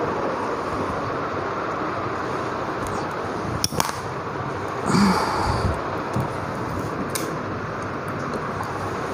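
Steady rushing background noise, with a sharp click just before the middle, a soft knock about five seconds in, and another small click a couple of seconds later.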